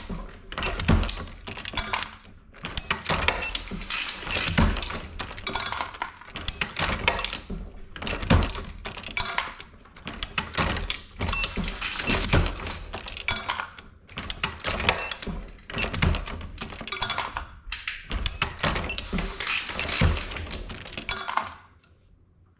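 Dillon 750 progressive reloading press being cycled stroke after stroke, with metallic clanks and rattles from the ram, shellplate and cases and a short high ring about every three to four seconds. The strokes stop shortly before the end.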